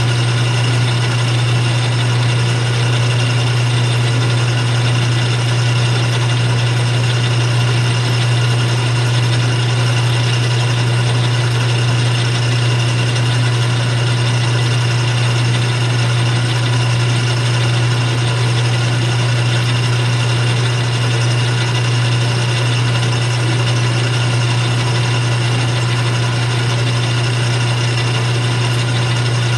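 Atlas 6 bench lathe running steadily, its electric motor and drive giving a constant loud hum with a steady whine over it.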